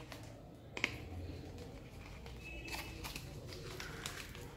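Faint handling noise: plastic bubble-wrap packaging rustling as a small plastic device is unwrapped and turned in the hands, with one sharp click about a second in.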